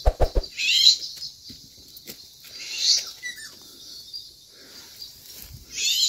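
Footsteps and rustling through grass and undergrowth: a few low knocks at the start, then three sharp bursts of rustling. A short falling bird call sounds about three seconds in.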